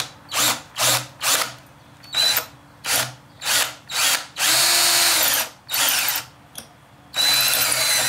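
Cordless drill boring out an existing hole in a metal pipe, enlarging it ahead of tapping. The trigger is pulsed in about seven short bursts, then held for two longer runs of about a second each, the motor winding up and down with each pull.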